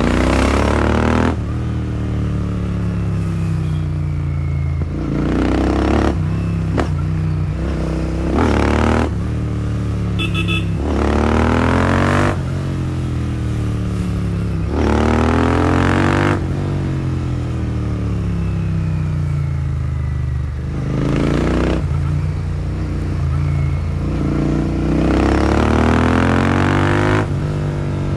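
Royal Enfield Continental GT650's 650 cc parallel-twin engine running through an aftermarket Powerage short cone exhaust while ridden. The engine pitch climbs under acceleration about six times and falls back between each climb, as with gear changes or rolling off the throttle.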